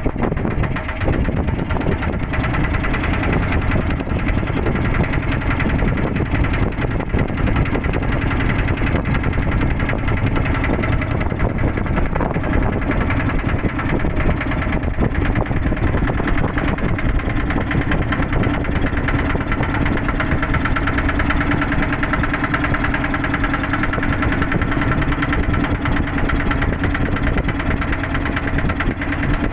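Motorboat engine running steadily at an even speed, with a fast regular beat.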